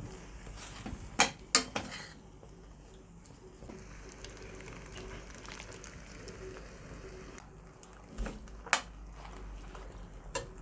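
Cooking utensil scraping and knocking against a pot as food is stirred on the stove. A few sharp clinks come near the start and two more near the end, over a faint steady sizzle.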